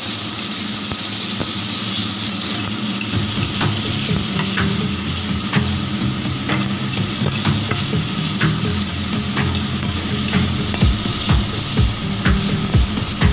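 Sliced beef sizzling as it stir-fries in a stainless steel pan, a steady hiss, with a spatula scraping and knocking against the pan about once a second and more often near the end.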